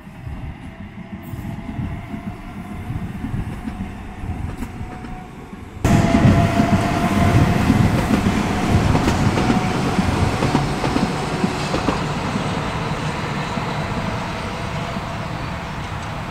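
Appenzeller Bahnen metre-gauge electric train running on its track, growing louder as it approaches. About six seconds in it turns abruptly much louder, with a steady whine over the running noise, then eases off slowly.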